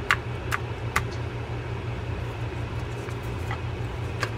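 A few light clicks of a Quantum Iron round baitcasting reel's small parts as the reel is turned over in the hands to work the level-wind pawl out: three in the first second and one near the end. A steady low hum runs underneath.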